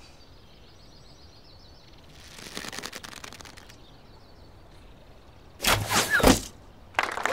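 An arrow shot from a bow, whooshing through the air in a loud rush a little over five seconds in, after a softer rush about two seconds in. Applause breaks out just before the end.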